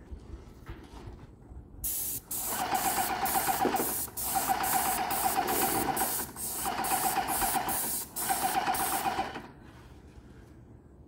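Airless paint sprayer running while the gun sprays paint: a steady motor whine with rapid, even pump pulses, about three a second. It starts about two seconds in, dips out briefly three times, and stops shortly before the end.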